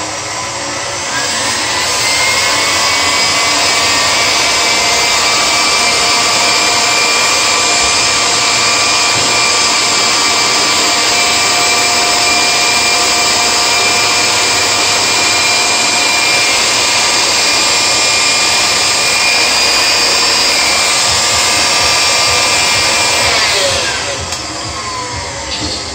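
An electric mixer's motor spins up about a second in, runs steadily with a whine over a rushing noise, then winds down near the end.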